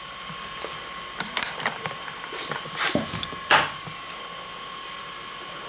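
Rummaging through stored things: a run of short knocks and rustles as objects are handled, the loudest about three and a half seconds in, over a faint steady high hum.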